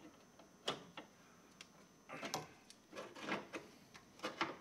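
Faint, scattered clicks and short scrapes of a metal hand tool gripping and working the thin steel of a pickup's radiator support, bending the crash-damaged metal back straight.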